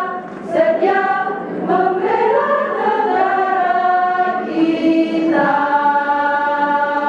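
Women's choir singing a slow melody in parts, the notes held and stepping, closing on one long sustained chord over the last couple of seconds.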